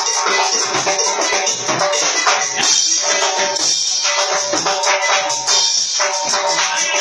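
A live band playing: timbales and cymbals struck in a quick, busy rhythm over electric guitar, with a bright rattling shimmer on top.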